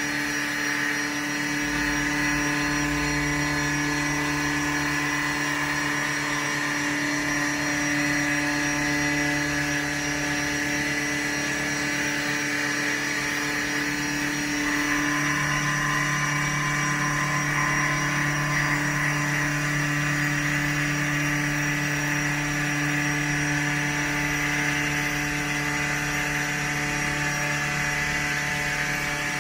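Haas VF-2B CNC vertical machining center milling a round aluminium part with an end mill: a steady spindle hum with several held tones under a hiss of cutting. The tone mix shifts a little about halfway through as the cut goes on.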